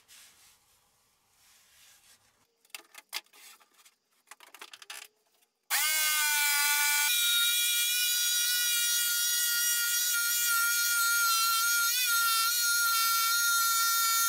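Faint rubbing and a few light knocks. About six seconds in, an electric jigsaw switches on: its motor whine rises briefly, then settles into a steady high whine as it cuts a thick oak board. The blade is being forced and its teeth are losing their tips, so the cut is starting to smoke.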